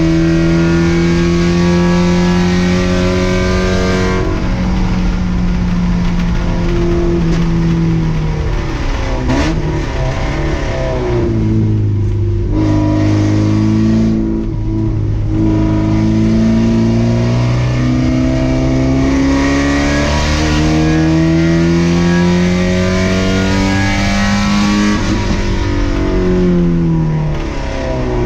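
Race car engine heard on board at full throttle, its pitch climbing through the revs with a sharp drop about four seconds in as it shifts up. The pitch falls around eight to ten seconds in and again near the end as it slows for corners, and climbs again in between.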